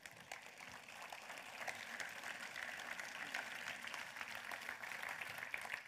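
Audience applauding, many hands clapping together. It swells over the first second and dies away near the end.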